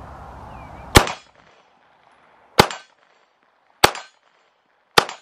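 Four pistol shots from a PSA Dagger 9mm, a little over a second apart, each with a short echo; the first shot is the loudest.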